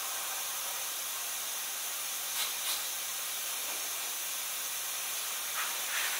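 A steady, even hiss, with faint short sounds about two and a half seconds in and a slight swell near the end.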